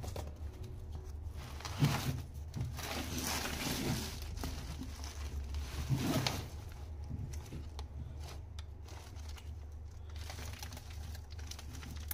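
Old paper files and bound ledgers handled by hand: the string tie pulled, and dry paper and card covers rustling and crinkling in several bursts, with a knock about two seconds in and the loudest rustle around six seconds in.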